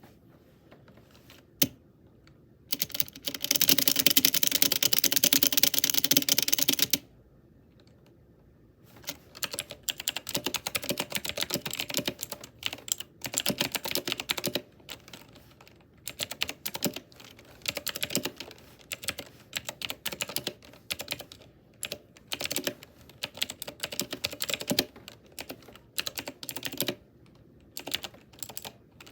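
Ajazz AK33 mechanical keyboard with clicky blue switches and modded stabilizers being typed on. A dense, loud flurry of key clatter lasts about four seconds near the start. After a short pause, typing comes in bursts of clicks with brief gaps.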